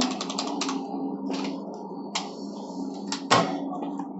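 Logitech G512 mechanical keyboard being handled on a desk: a few quick clicks near the start, then scattered taps and knocks, the loudest a little past three seconds in, over a steady low hum.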